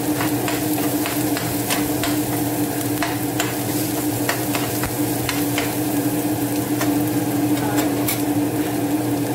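A metal ladle stirring chopped onion and garlic in a nonstick frying pan, clicking and scraping against the pan, mostly in the first few seconds, over a steady sizzle of the onions frying in oil. A steady low hum runs underneath.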